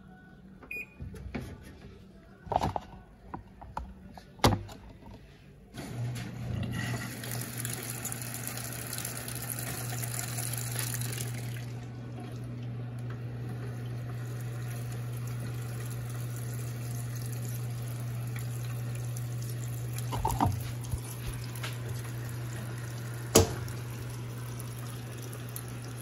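Panasonic top-load washing machine starting to fill: after a few sharp clicks, water begins rushing into the drum about six seconds in, with a steady hum under it. A single sharp knock comes near the end.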